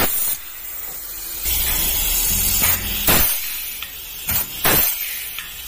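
Pneumatic blind rivet gun working: a rush of air hiss at the start as the air hose is coupled on, then bursts of exhaust hiss and several sharp snaps as rivets are pulled and their mandrels break off.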